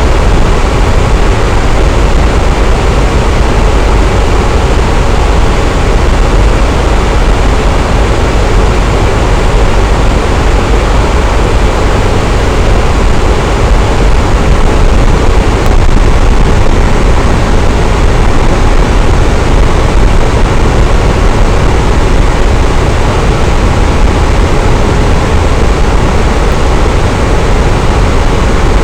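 Electric fan running steadily: a loud, even whoosh of air with a deep low rumble and no change over time.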